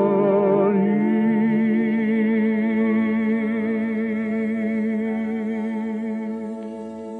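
The last phrase of a song: a singing voice steps up about a second in and holds a long final note with a steady vibrato over a sustained orchestral chord, fading away near the end.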